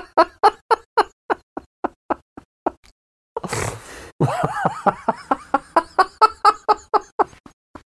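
A man laughing helplessly in rapid gasping pulses that fade out. About three and a half seconds in he draws a long wheezing breath, then breaks into a second bout of laughter that tails off.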